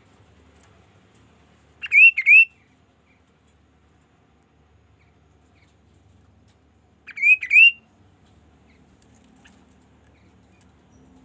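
Kaso-kaso (chestnut-capped babbler) calling: two short, loud phrases about five seconds apart, each of two or three quick, clear swooping whistled notes.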